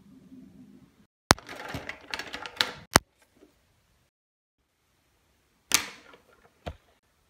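Markers being handled and drawn across paper: a stretch of scratchy rustling with several sharp clicks, such as marker caps snapping.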